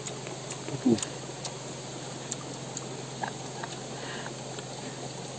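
Close-up chewing of a mouthful of fern fruit, with small wet mouth clicks and smacks, over a steady rush of stream water. A short hummed 'mm' about a second in.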